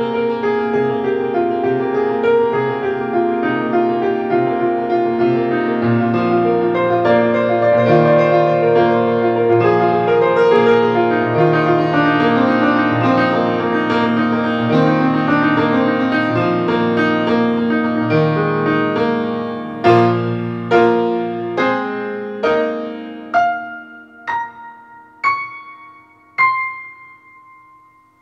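Solo piano improvisation: dense, sustained chords for most of the stretch, then from about two-thirds of the way single struck notes about one a second, stepping upward in pitch and growing quieter, the last one left to ring out.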